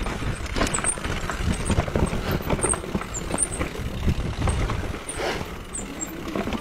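Mountain bike clattering down a rocky dirt trail: tyres crunching over loose stones, with a steady rumble and irregular knocks and rattles from the bike as it bounces over the rocks.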